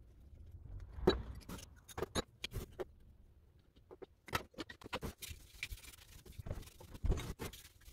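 Irregular clicks, knocks and scrapes of small metal parts being handled during the strip-down of an old bench grinder, with a few sharper knocks about a second, two seconds and seven seconds in.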